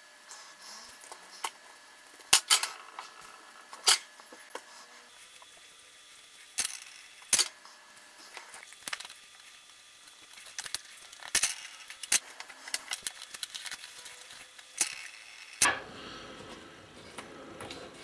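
Irregular sharp clicks and taps, a dozen or so, from hands handling a small stripboard circuit, its wires and a metal audio jack on a workbench.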